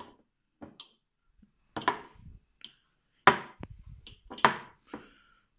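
Several short, sharp knocks and clicks of a table knife being handled and dipped into a glass jar of chocolate spread, tapping against the jar, the loudest two past the middle.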